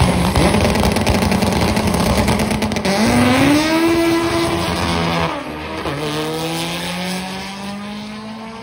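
Drag cars launching off the start line: engine pitch holds steady, then climbs, drops at a gear change about five seconds in, and climbs again while the sound fades as the cars pull away down the strip.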